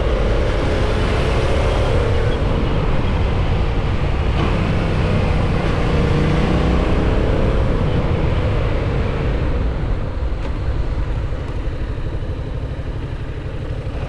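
Yamaha MT-07's parallel-twin engine running under heavy wind rush on a helmet-mounted camera as the bike slows from road speed to a crawl. The wind and engine note both ease off from about eight seconds in.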